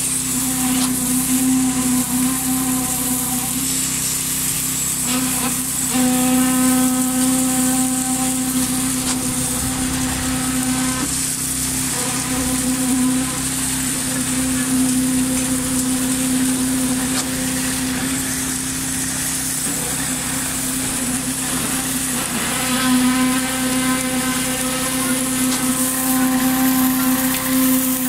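Concrete poker vibrator running with a steady, high-pitched hum while it consolidates freshly poured concrete; the hum grows fuller for a few seconds at a time, twice, as the poker works in the mix.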